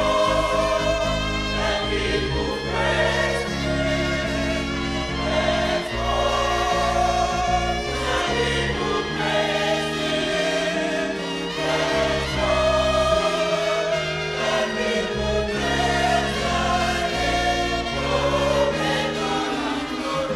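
Choral gospel music: a choir singing sustained notes with vibrato over a steady bass line.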